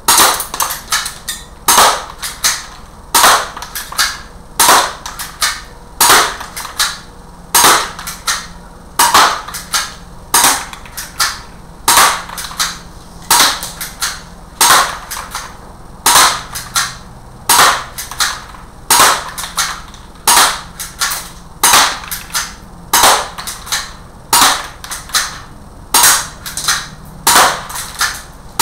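Airsoft Sig Sauer P230 pistol fired at a slow, even pace, about one shot every one and a half seconds. Each shot is a sharp snap with a second click close behind it.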